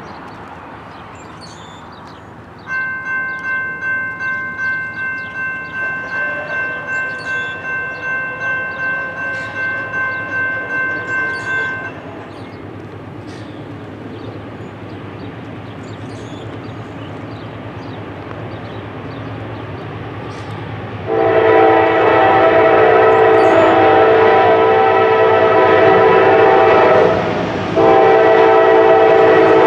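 Locomotive air horn on an approaching Norfolk Southern GE AC44C6M freight: one long blast, a short break, then another blast. Before the horn, a bell rings rapidly for about nine seconds, about two and a half strokes a second.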